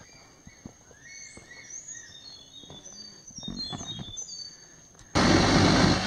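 Wild birds chirping and calling with footsteps on a dirt forest trail. About five seconds in it cuts abruptly to loud engine noise.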